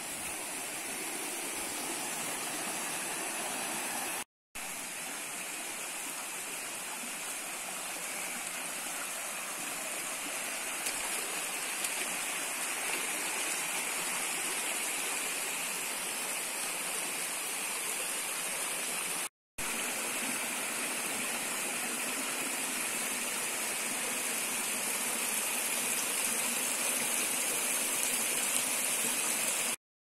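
Steady rushing of a shallow rocky stream spilling over small cascades, cut off for a split second twice.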